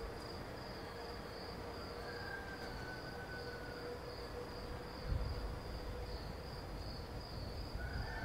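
Insects trilling in a steady, high, pulsing chirp, with a brief low rumble about five seconds in.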